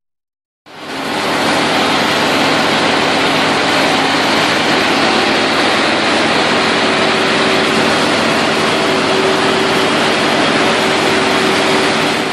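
Sonalika tractor running on a roller test bed: a loud, steady, even rush of engine and rear tyres turning on the rollers, with a faint steady hum underneath. It begins about a second in.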